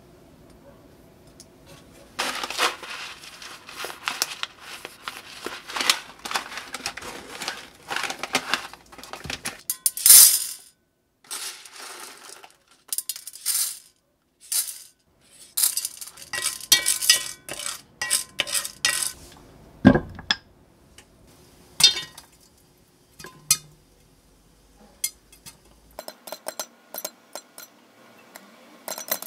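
Kitchen handling sounds at a pot on the hob: popcorn kernels rattling and clinking in the pot as they are poured in and stirred with a spoon, then the lid clinking on and a foil wrapper crinkling.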